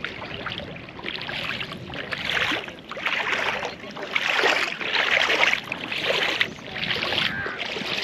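Shallow seawater splashing and washing, swelling and falling about once a second.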